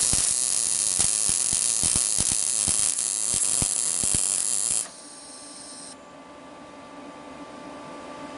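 MIG welding arc from a PrimeWeld MIG 180 laying a short bead: about five seconds of hissing and crackling that starts and stops abruptly. A steady hum follows.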